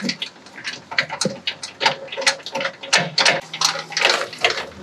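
Camper trailer's hand-cranked tongue jack being wound up, its gears and crank giving irregular sharp clicks, several a second, as the coupler is lifted off the tow vehicle's hitch ball.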